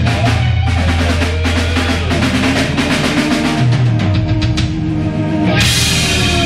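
Live rock band: the drummer plays a rapid fill on a Ludwig drum kit over held electric guitar and bass notes, and about five and a half seconds in the full band crashes back in with cymbals.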